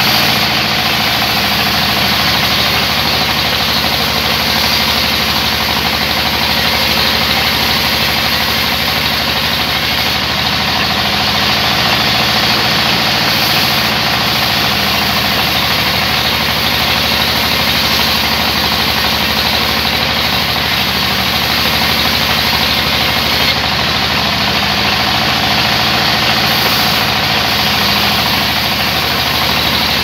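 Large vertical band saw running and ripping lengthwise through a thick wooden slab: a steady, loud cutting noise over the constant low hum of the saw's motor.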